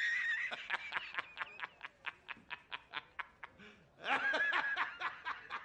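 A man laughing hard: a high-pitched squeal, then a fast run of 'ha' bursts about five a second that trail off, then another high squeal about four seconds in.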